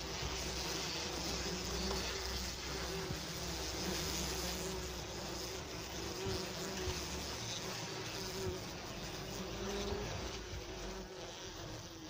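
Wasps buzzing steadily in and around their paper nest just dusted with insecticide powder: the colony is agitated and flying everywhere.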